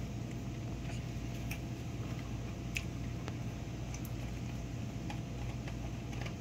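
A steady low hum with a few faint, scattered clicks, about one a second.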